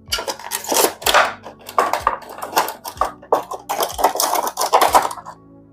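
Hands handling a shaver's box and packaging: a run of irregular scraping and rustling noises that stops about five seconds in.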